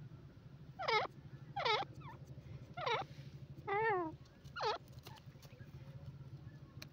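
Grey francolin giving short, sharp calls: four quick notes that sweep down in pitch, spaced about a second apart, with one longer wavering note between the third and fourth.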